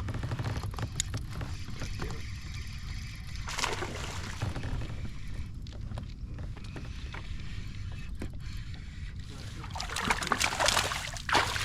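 Water and handling sounds on a fishing kayak: a steady low rumble with scattered small knocks, and louder splashing swishes about three and a half seconds in and again near the end.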